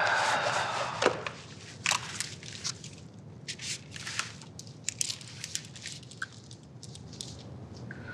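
Light rustling and scattered small clicks and scrapes of handling: clothing, and a pen writing on paper on a clipboard. The rustle is heaviest in the first second, then the sounds become sparser.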